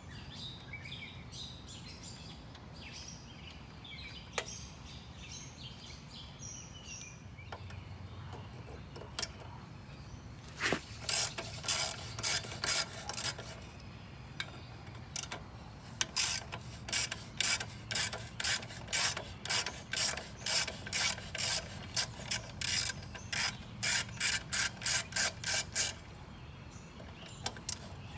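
Hand socket ratchet clicking in repeated quick runs, about two to three clicks a second, as bolts are worked loose to remove the lawnmower's carburetor. The clicking starts about ten seconds in and stops briefly a couple of times. Before it, birds chirp faintly.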